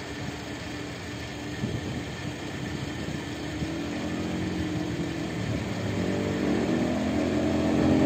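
A motor vehicle's engine approaching, growing steadily louder through the second half over a steady background rumble.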